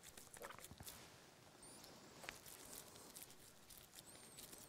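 Near silence, with a few faint soft pats and clicks of wet hands pressing minced meat around a boiled potato.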